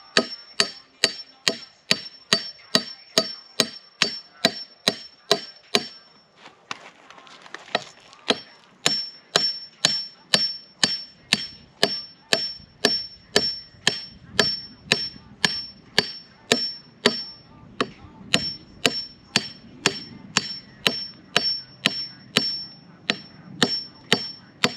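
Hammer driving steel stakes beside wooden footer form boards: steady blows, roughly two to three a second, each with a high metallic ring, with a short pause about six seconds in.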